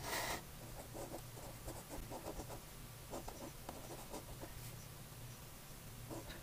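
A fine-tipped felt pen scratching across paper in short handwriting strokes, with a brief louder scratch right at the start.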